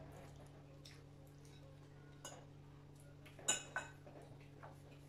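Metal forks clinking against porcelain plates as food is picked up: a few scattered clinks, the sharpest two close together about three and a half seconds in, over a steady low hum.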